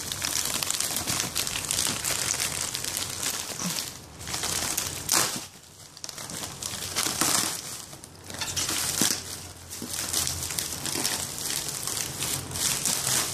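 Plastic shipping mailer and bubble wrap crinkling and rustling as hands tear the bag open and pull at the packing, in irregular bursts with a couple of short pauses.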